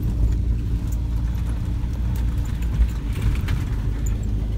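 UAZ off-road vehicle's engine running steadily as it drives slowly in a low gear, heard from inside the cab, with a few faint light rattles.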